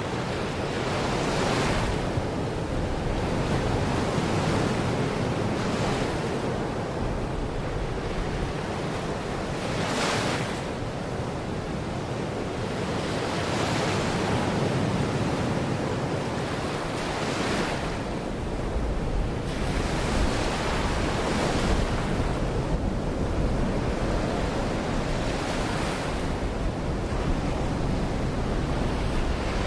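Sea waves breaking on a beach, a wash of surf swelling and falling every few seconds, with wind rumbling on the microphone.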